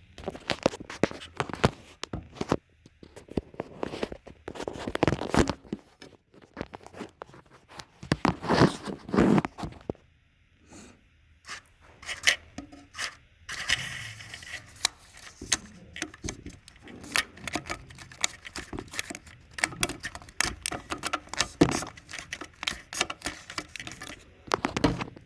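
35mm film being fed by hand through the rollers of an Arriflex 400-foot film magazine: irregular scraping, rustling and clicking of the film stock against the magazine's metal parts.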